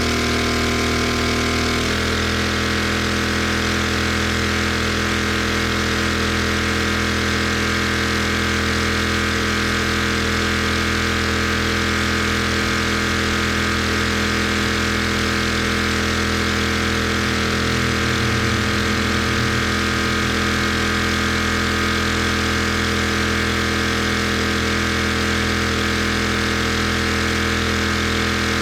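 Gas pressure washer engine running steadily. About two seconds in its pitch drops slightly and then holds at the lower note.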